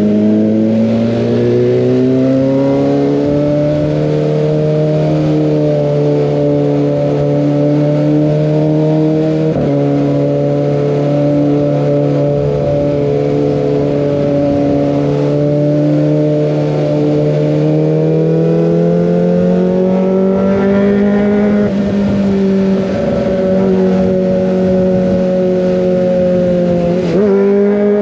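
Kawasaki ZX25R's 250 cc inline-four running hard through an Over Racing GP-RS full-system exhaust while riding. The engine note climbs over the first few seconds, holds steady for a long stretch, then climbs again, with short breaks in the note near 10 s, 22 s and 27 s.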